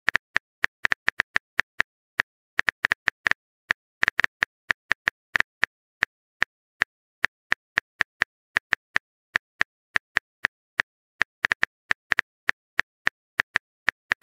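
Phone keyboard typing clicks: short, sharp taps coming a few per second at an uneven pace, as text is typed into a chat message.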